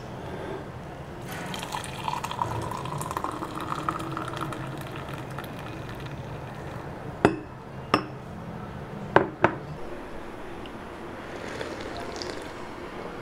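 Liquid pouring into a glass container, its pitch rising slightly as the vessel fills, followed by four sharp clicks as the pouring stops.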